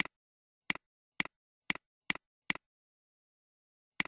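Computer mouse clicks, each a quick press and release: six in a run over about two and a half seconds, then one more near the end, with dead silence between.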